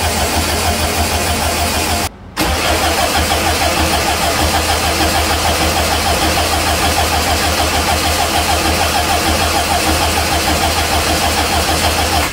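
A car engine idling steadily with an even, rhythmic pulse. It cuts out for a moment about two seconds in, then runs on.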